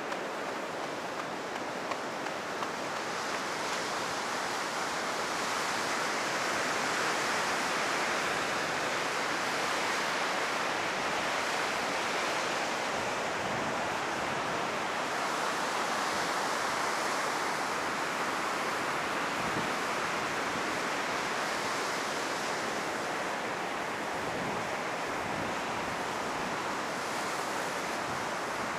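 Heavy ocean surf breaking on a sandy beach: a continuous wash of waves that swells and eases every several seconds. The sea is running high after a typhoon.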